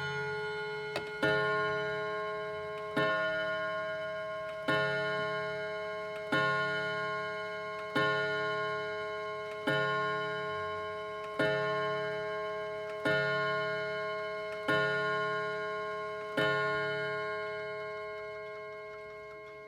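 Chiming clock striking: ten evenly spaced ringing strokes, about one every second and a half to two seconds, each ringing on and fading before the next, the last dying away near the end.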